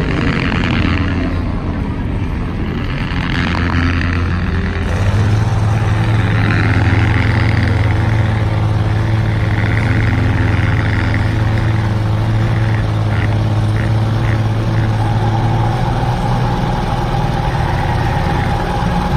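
Loud truck engine running with a deep, steady drone. In the first few seconds there are brief rises and falls in pitch.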